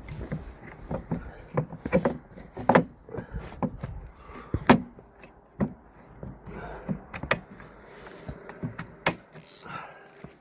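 Irregular knocks and clicks of an aluminium frame with Ski-Doo LinQ brackets being handled and test-fitted onto its mounting base. The sharpest knock comes a little under five seconds in.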